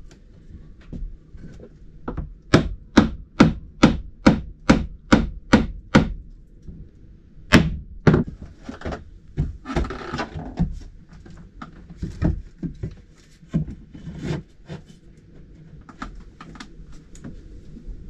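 Hammer blows knocking a new timber frame into place against a wooden boat's hull: a steady run of about ten strikes, roughly three a second, then slower, scattered knocks and a brief scrape.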